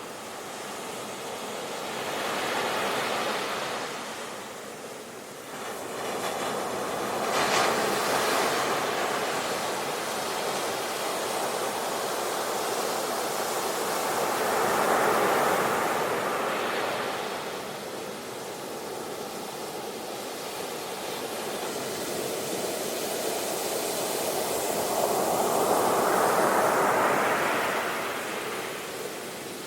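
Ocean surf: waves breaking and washing in, rising and falling in slow surges. A sharp crash comes about seven seconds in, with further swells near the middle and toward the end.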